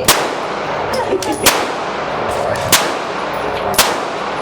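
Four gunshots, about one and a quarter seconds apart, each with a short echoing tail.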